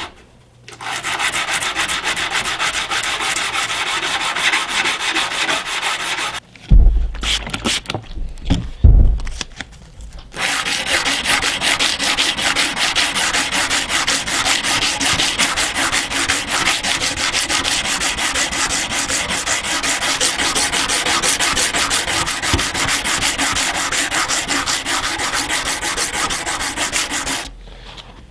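Hand sanding a forged steel knife blade with sandpaper on a small block, wetted with cutting fluid: a steady, rapid back-and-forth scraping of grit on steel. The sanding stops for a few seconds, during which there are two loud, heavy thumps, then resumes.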